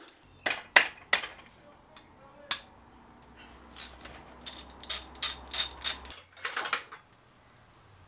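Sharp metallic clicks and clanks of hand tools and engine parts as the head bolts are undone and the cylinder head is worked free of a VW 2.0 TSI engine block. Single knocks come first, then a quicker run of clicks a few seconds in, over a faint low hum that cuts off about six seconds in.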